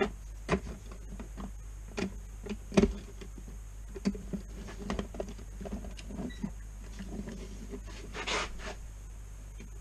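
Handling noises on a workbench: irregular knocks and clicks as a OO gauge model locomotive and a length of track are moved about and set on a digital kitchen scale, the sharpest in the first three seconds, with a brief rustle near the end.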